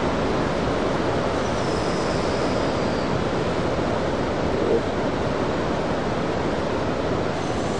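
Heavy ocean surf heard from the beach: a steady rush of big waves breaking and white water washing in.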